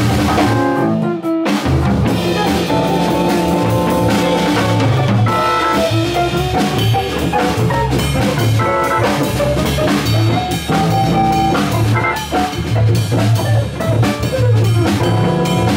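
Live jazz organ combo: a drawbar organ, a hollow-body electric guitar and a drum kit playing an uptempo groove, with sustained organ bass notes under the guitar and drums.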